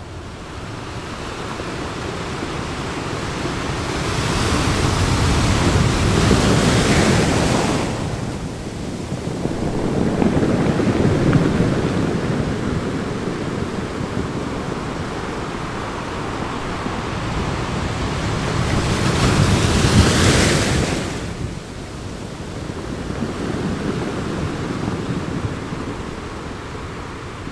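Sea surf breaking, a steady rush that swells into two big surges, one about four seconds in and another near twenty seconds, with wind blowing across the microphone.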